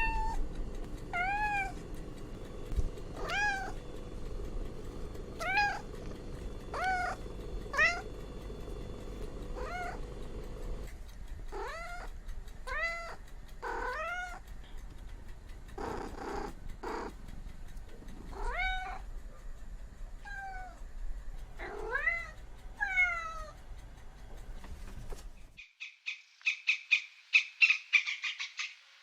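A cat meowing over and over, each meow a short call that rises and falls in pitch, about one every second or two. Near the end the meows stop and a fast, pulsing trill begins.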